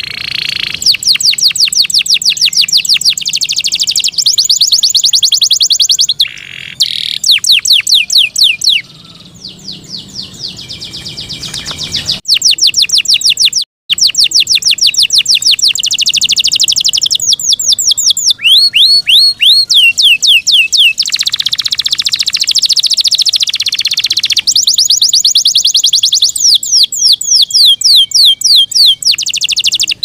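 Yorkshire canary singing loudly: a fast song made of rapid trills of quickly repeated high, falling notes, switching from one trill to the next every second or two, with a brief break about halfway through.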